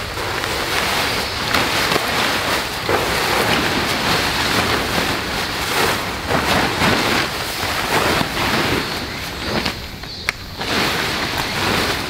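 Hilleberg Una tent's nylon fabric rustling and crinkling as it is pulled out and unfolded, with a short lull near the end.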